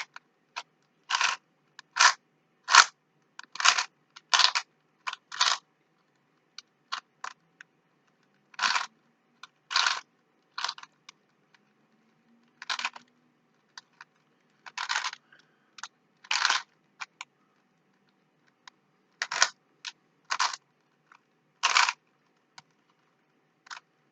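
A Rubik's Cube being turned by hand: short plastic clicking rasps of the layers twisting, some in quick runs of two or three and some a second or two apart.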